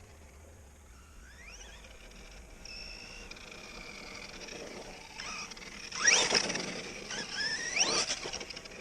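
Quantum Flux RC car's brushless electric motor whining as the car accelerates hard. There is a rising whine a little over a second in and a steady high whine through the middle, then two sharp rising whines about six and eight seconds in, the first the loudest.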